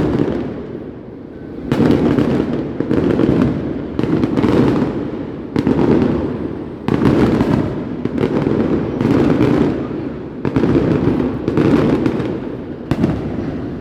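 Fireworks going off in quick succession, about one loud bang a second, each bang followed by a rumble that fades before the next.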